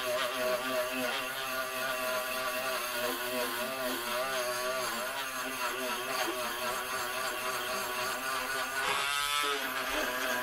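Dremel 7700 cordless rotary tool running with a brush bit, scrubbing corrosion off a battery terminal. Its motor whine wavers in pitch as the brush bears on the metal, with a quick swoop in pitch near the end.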